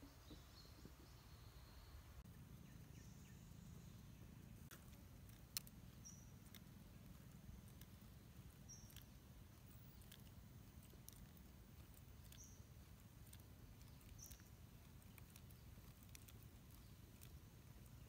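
Near silence: faint outdoor ambience with a low rumble, short high chirps every two or three seconds and scattered small clicks, one sharper click about five and a half seconds in.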